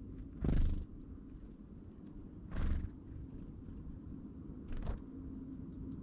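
Three short whirring wing flutters about two seconds apart: great tits flying in to and off a pile of sunflower seeds. A steady low hum runs underneath.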